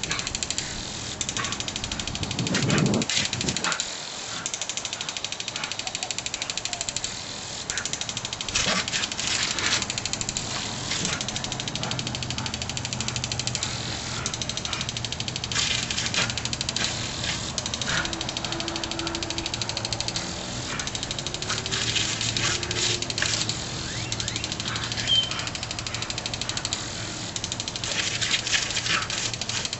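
Impact lawn sprinkler clicking as its single water jet sweeps across the grass, with runs of faster, louder clicking every six or seven seconds, and the spray hissing steadily. A brief low rumble about three seconds in.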